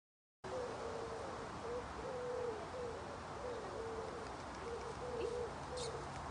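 Silent for the first half second. Then a pigeon coos over and over, short low notes about every half second, some falling slightly in pitch, over a steady outdoor background hiss and hum.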